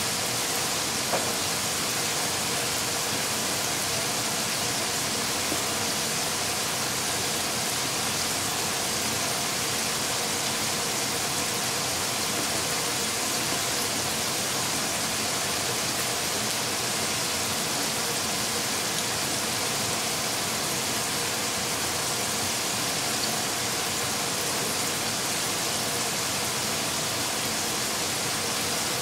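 A steady, even hiss with no other sound standing out.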